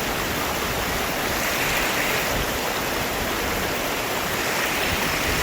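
Rushing water of a river or stream, a steady, even rush with no breaks.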